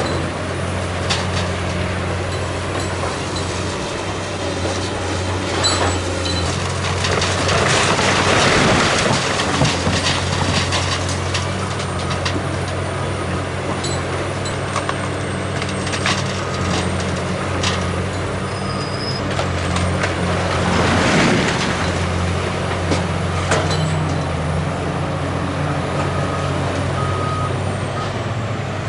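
Tracked excavator's diesel engine running steadily during building demolition. Rubble crashes down twice, about eight and about twenty-one seconds in, with scattered knocks of debris in between.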